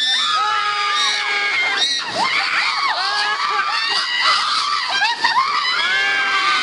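Several raft riders screaming and shrieking together on a river rapids ride, many high, overlapping yells one over another.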